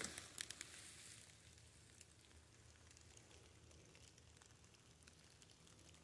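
Near silence in the woods, with faint scattered ticking typical of light rain on leaf litter. A few sharp crunches of footsteps in wet leaves come in the first half second.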